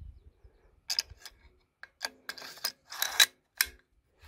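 Sharp metallic clicks and clinks of a CMMG .22 conversion bolt assembly being handled and fitted toward an AR upper receiver, a dozen or so irregular clicks, some briefly ringing.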